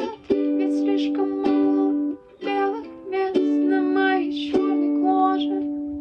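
Ukulele strumming chords under a sung vocal line, closing the song on a last strummed chord that rings and fades out.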